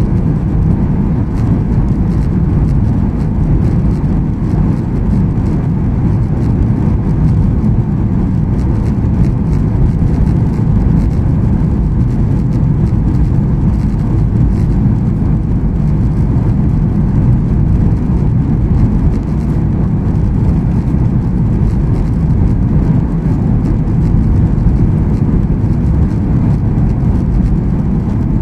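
Steady cabin noise inside a jet airliner descending on approach to land: a low, even rumble of the jet engines and the airflow over the fuselage.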